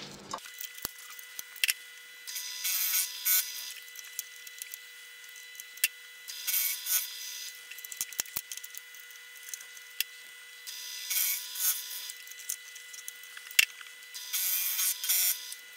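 Vertical milling machine with an end mill cutting a cylindrical roller held in a rotary attachment. A faint steady whine runs under four bursts of cutting noise, each about a second long and about four seconds apart, with scattered clicks between them.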